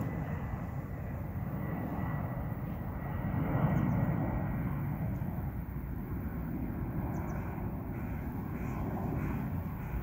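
Steady low outdoor rumble, swelling briefly about four seconds in, with a faint thin high tone over the first few seconds.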